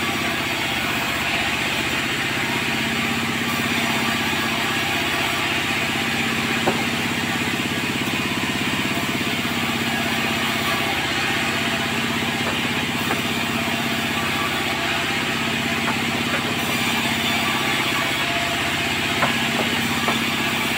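Sawmill machinery running steadily, a constant engine drone, with a few faint knocks about a third of the way in and near the end.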